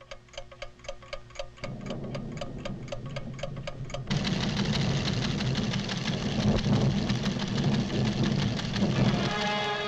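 Rapid, even mechanical ticking of delicate scientific recording instruments. About a second and a half in, a low rumble joins it, and about four seconds in it swells into a loud, dense rumbling that drowns the ticking: the volcano's tremors building.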